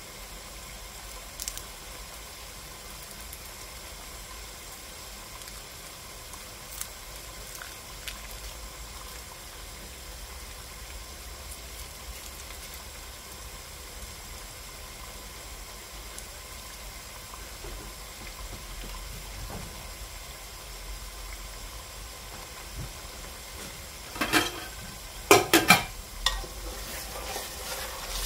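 Tomato stew simmering in a large metal pot, a steady bubbling hiss. Near the end a metal ladle knocks against the pot several times, and stirring follows.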